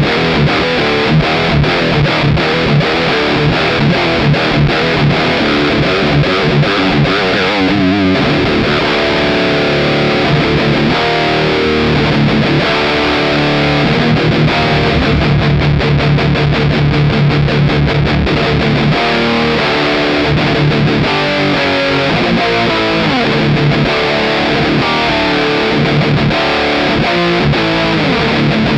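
High-gain distorted electric guitar played through the Mooer GE200's Mesa Boogie Mark III amp model, with an unusual shaping of the mids. Fast chugging riffs give way to held chords and single-note lines about nine seconds in.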